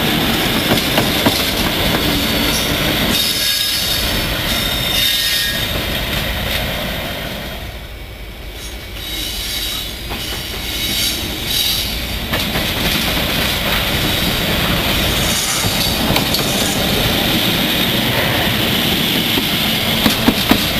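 CP 1900-series Alsthom diesel-electric locomotive running light while shunting: its diesel engine runs with wheel noise on the rails as it moves close by. The sound falls away about seven to nine seconds in and builds up again as the locomotive comes back close, with a few sharp clicks near the end.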